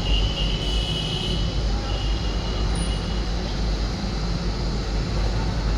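Steady road traffic rumble, with a faint thin high whine in the first half.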